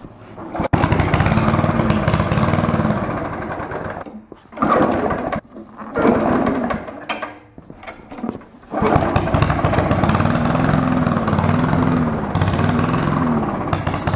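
Small lawnmower engine, running on an improvised sock air filter, starting up under a second in. It cuts out and sputters several times between about four and nine seconds in, then runs steadily, its speed surging up and down about once a second.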